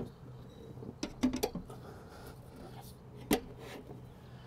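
A few light clicks and knocks: a quick cluster about a second in and one sharp click a little after three seconds, as a solar panel's aluminium frame is set against metal mounting rails. A faint steady hum runs underneath.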